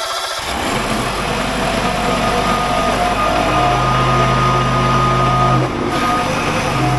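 John Deere riding mower's freshly reinstalled engine running steadily, with a constant low hum under it and a brief dip about five and a half seconds in.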